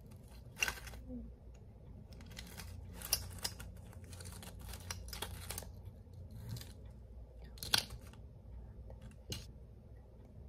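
Intermittent short rustles and clicks of small objects being handled, such as paper or packaging being cut, torn or crinkled, over a low steady room hum.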